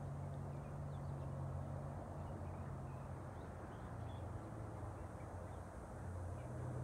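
Outdoor ambience: a steady low hum with faint, scattered bird chirps over it.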